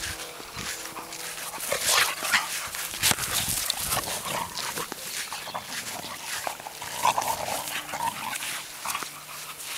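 Two Boxer dogs play-fighting: dog vocal sounds mixed with a string of quick, sharp scuffling noises as they wrestle, busiest in the first half.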